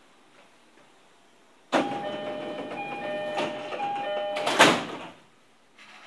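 E231 series commuter train's door-closing chime, two alternating tones, sounding over the noise of the sliding doors closing, which shut with a loud bang near the end.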